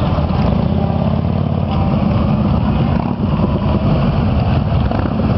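Motorcycles, including touring bikes and a trike, riding past at low speed, their engines making a steady low rumble.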